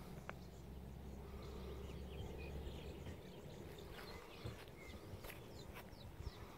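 Quiet outdoor lakeside ambience: a few faint, short bird chirps over a low rumble that stops about halfway, with a few soft clicks.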